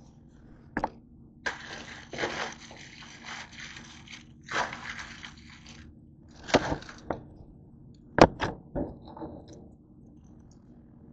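Plastic instant ramen packets being handled, crinkling in several bursts, with a few sharp clicks and knocks near the start and again toward the end.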